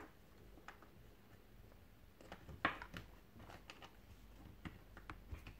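A few faint, scattered plastic clicks and taps as a laptop keyboard is handled and pressed onto a ThinkPad laptop's chassis, the sharpest about halfway through.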